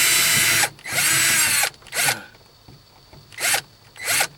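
Power drill-driver running in bursts to back out a Phillips screw from interior trim. A run stops under a second in, another lasts about a second, then come three short spurts.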